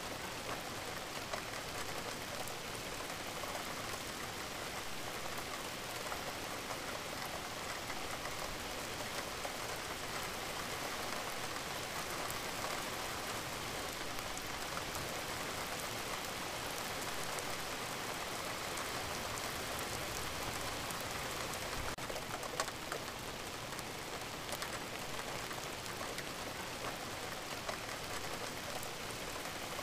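Recorded rain ambience: steady rain falling, an even hiss dotted with the patter of single drops.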